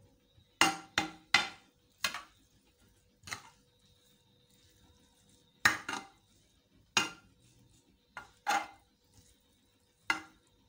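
About ten sharp clinks and knocks against a glazed earthenware dish at irregular intervals, as steamed vermicelli is worked loose in it.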